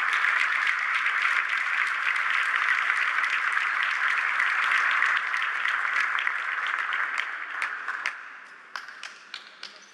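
Audience applauding, steady for about eight seconds, then thinning out to a few scattered claps near the end.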